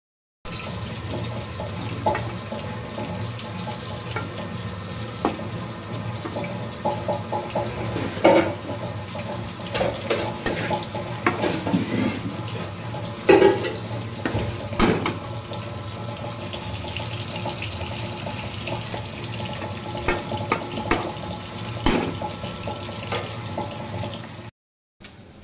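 Amaranth greens (mulai keerai) frying in a metal kadai with a steady hiss, stirred with a metal spatula that scrapes and clinks against the pan every few seconds.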